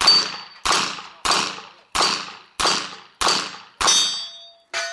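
Stock revolver firing a rapid string of about eight shots, one roughly every 0.6 s, at steel targets; the last two or so are followed by a clear metallic ring of struck steel plates.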